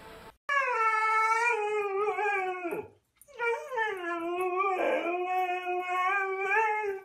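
A husky howling: two long, wavering howls with a short break for breath between them.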